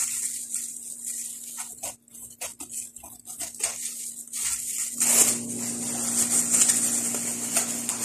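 A knife cutting the thick peel off a large citron (turunj), heard as a string of short cuts and scrapes. About five seconds in, a steady hum with a hiss comes up.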